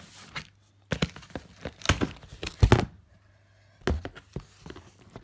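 Cardboard box being opened by hand, its taped flaps pulled apart, giving a run of sharp crackles and knocks with a short quiet spell about three seconds in.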